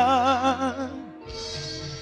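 A male gospel singer holds the last note of a sung line with vibrato, over instrumental accompaniment. The voice fades out about halfway through, leaving the accompaniment playing more quietly.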